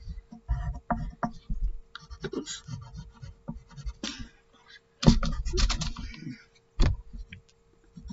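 Pencil scratching on paper in short, irregular strokes as a sketch is drawn, with a couple of louder sharp knocks about five and seven seconds in.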